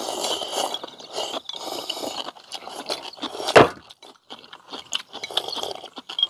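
Ramen noodles being slurped from bowls in a series of noisy sucking draws, with one sharp knock about three and a half seconds in.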